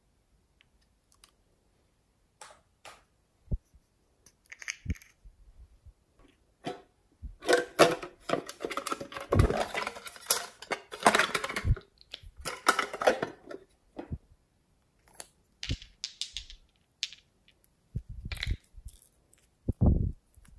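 Light clicks and taps of hands handling a hard plastic toy wand, then several seconds of rustling and scraping as a pink box is opened. Near the end come more clicks and a couple of dull knocks as a nail polish bottle is handled and its cap unscrewed.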